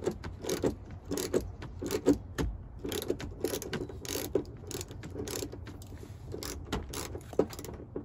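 Hand ratchet with a socket tightening a seat-belt receptacle bolt: the pawl clicks in short runs as the handle is swung back and forth.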